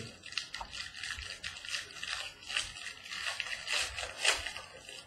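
Clear plastic wrap crinkling and rustling as it is torn off and crumpled from a mini box of trading cards, in quick irregular crackles.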